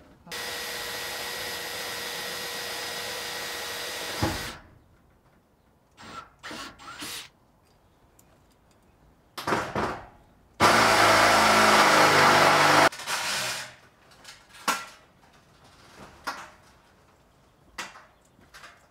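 Cordless drill running against corrugated iron sheeting in two steady runs: about four seconds at the start, then a louder two-second run midway. Short knocks and clatters of sheet-metal handling come between the runs.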